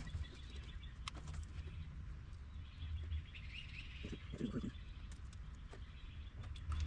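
Quiet outdoor background with faint bird chirps, a steady low rumble and scattered light clicks.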